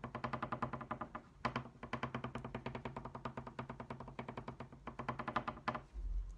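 Green wax crayon scribbling fast back and forth on paper over a wooden tabletop, about ten quick scratchy strokes a second, with a couple of brief pauses, stopping shortly before the end.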